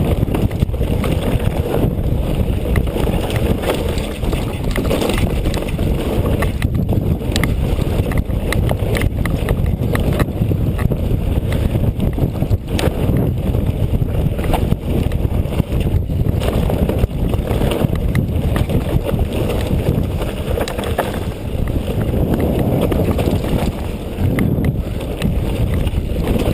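Wind buffeting the camera microphone, mixed with the rattle of tyres and frame and scattered clicks and knocks from a Specialized Turbo Kenevo electric mountain bike riding down a rough trail. The noise runs on without a break.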